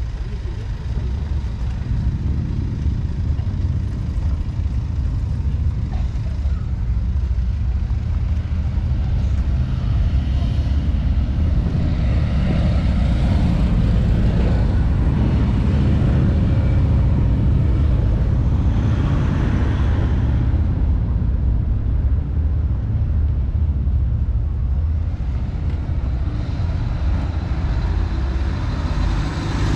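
Road traffic passing on a street: cars and a motorcycle going by in a few swells over a steady low rumble, with a truck passing close near the end.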